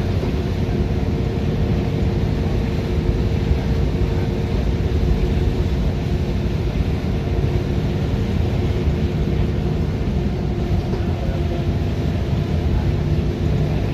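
Cabin of a 2011 Gillig Advantage transit bus travelling at highway speed: a steady, loud drone of engine and road noise with a constant hum, whose pitch shifts slightly about ten seconds in.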